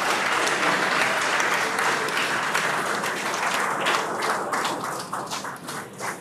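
Crowd applauding, the dense clapping dying down to scattered claps over the last couple of seconds.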